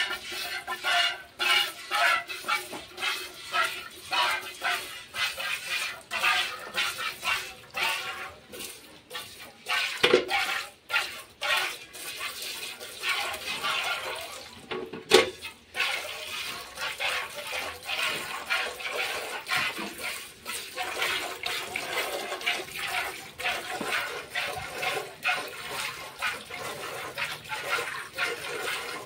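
Cow being milked by hand into a metal pail: squirts of milk strike the milk in the pail in a quick steady rhythm, about three a second. Twice in the middle comes a louder knock.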